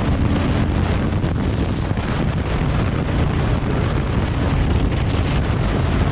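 Heavy, steady wind noise buffeting a mic inside a full-face motorcycle helmet while riding, a loud low rumble that drowns out everything else: the mic is not recognised by the GoPro Hero 7 ('audio input N/A').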